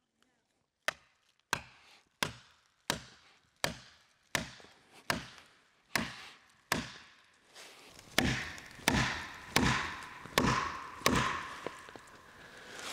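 Hard blows struck on wood in a steady rhythm, about three every two seconds, heavier and more ringing from about eight seconds in: a felling wedge being hammered into the cut of a tree that is balanced and will not fall.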